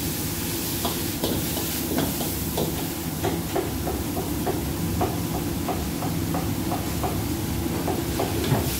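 Wok stir-frying on a gas wok burner: a metal ladle and spatula scrape and clack irregularly against a steel wok over the burner's steady roar and the sizzle of the food.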